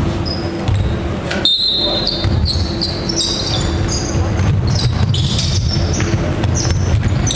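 A basketball bouncing on a hardwood gym floor during live play, with short high sneaker squeaks and players' voices.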